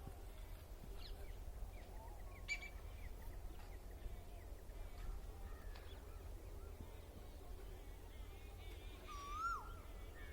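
Faint animal calls: a few short pitched cries, the clearest near the end holding a tone and then dropping sharply in pitch, over a steady low rumble.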